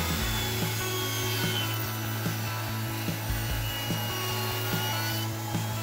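Table saw cutting through a cured epoxy panel filled with brass shavings, pushed through on a crosscut sled; the blade runs steadily through the cut over a constant motor hum.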